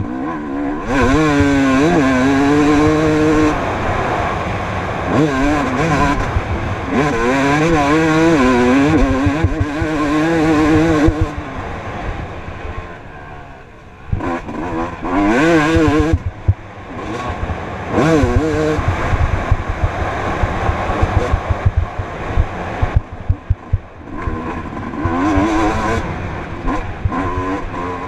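Motocross bike engine heard from onboard, revving up and down repeatedly as the throttle is opened and closed through the track's corners. There is a quieter stretch of closed throttle a little before halfway through.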